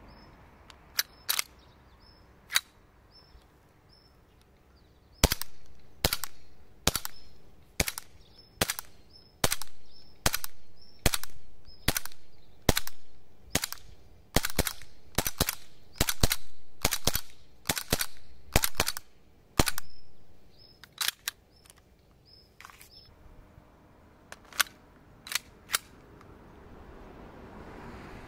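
SIG Sauer P320 M17 gas blowback airsoft pistol firing a string of about twenty sharp cracks, one shot under a second apart at first and quickening to about two a second. A few quieter clicks of the pistol being handled come before and after the string.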